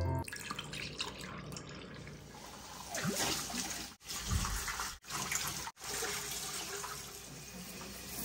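Water running from a kitchen tap into a stainless-steel sink while hands are rinsed under it. The sound cuts out briefly three times, between about four and six seconds in.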